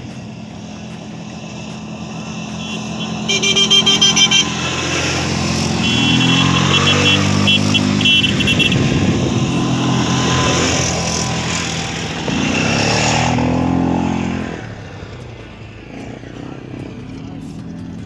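ATV (quad bike) engines approaching and passing one after another, their pitch dropping as each goes by. Runs of quick high horn beeps sound about three seconds in and again a few seconds later, and the engines fade out near the end.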